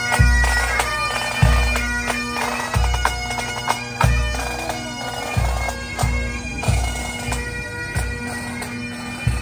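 Pipe band playing while marching: bagpipes sounding a steady drone under the chanter tune, with a bass drum beat about every second and a bit and snare drum strokes between. The band grows a little fainter toward the end as it moves away.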